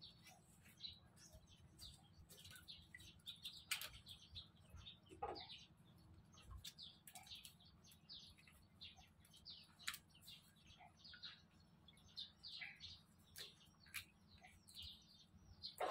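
Faint chirping of small birds, with a few soft clicks and splashes as live crabs are handled in a basin of water.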